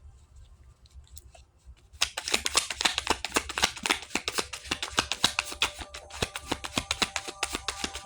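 A deck of tarot cards being shuffled by hand: a rapid run of card clicks and flutters starting about two seconds in and stopping just before the end.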